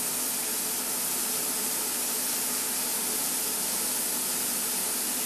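Steady hiss of steam escaping from a pressure cooker's spring-loaded valve, its indicator raised to the second ring: the pot is holding cooking pressure.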